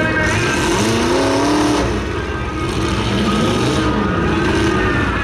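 Demolition derby cars' engines revving and running together, several pitches rising and falling over a steady low rumble.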